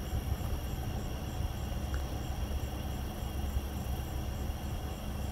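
Wind buffeting the microphone during a thunderstorm: a low, unsteady rumble.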